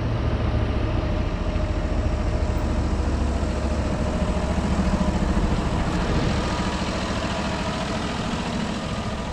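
Vehicle engine running steadily, a low, evenly pulsing rumble.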